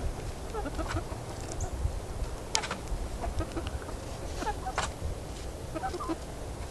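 Barred Rock and Wyandotte hens clucking softly on and off, with two sharper, louder calls about two and a half seconds and nearly five seconds in.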